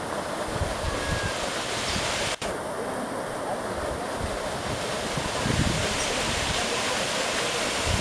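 Small waterfall splashing steadily down rock into a pool, an even rushing hiss. Low wind rumbles on the microphone come in twice, briefly, and the sound cuts out for a split second about two and a half seconds in.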